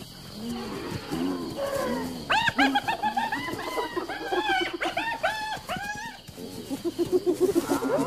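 Animal cries at a night predator kill: a rapid run of high, arching squeals, each rising and falling in pitch, starts about two seconds in. Near the end they give way to quick, lower pulsing calls.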